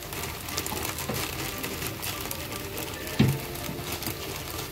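Broth with chicken and carrots bubbling and crackling at a boil in a wok, with one knock about three seconds in.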